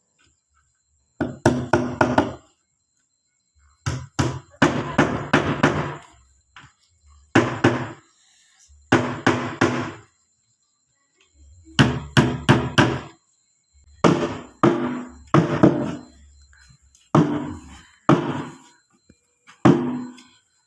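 A homemade drum being struck in quick clusters of hits, a group every second or two, each hit ringing with a deep pitched resonance.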